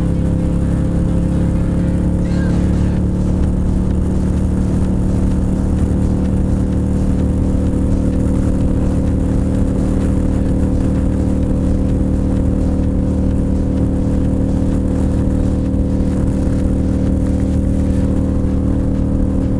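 Cruiser motorcycle engine running steadily at highway cruising speed, its pitch rising slightly over the first couple of seconds and then holding even, over steady wind rush on the microphone.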